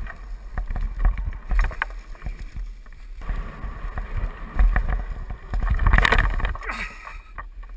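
Wind buffeting the microphone on a fast mountain-bike descent of a dirt woodland trail, with the bike knocking and rattling over bumps. There is a louder rushing scrape about six seconds in.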